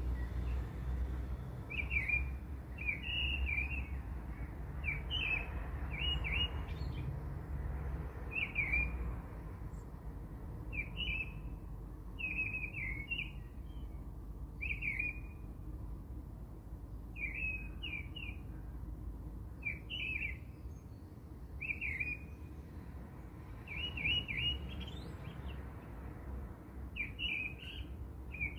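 A small bird chirping in short phrases of a few quick notes, repeated about every one to two seconds, over a low steady rumble.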